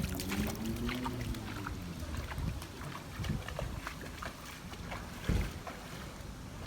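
Low rumbling wind noise on the microphone, with scattered clicks and a louder knock about five seconds in.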